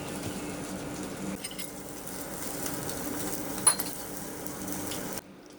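Light clinks of tableware over a steady background hum, with one sharp clink a little past halfway; the sound cuts off suddenly near the end.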